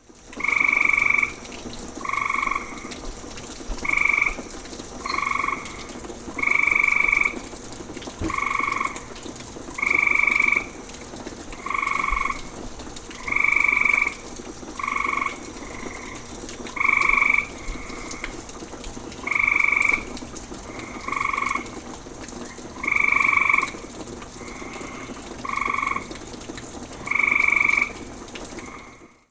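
Frogs calling: loud, buzzy calls half a second to a second long, repeated every second and a half to two seconds, with a fainter frog calling in between now and then, over a steady background hiss.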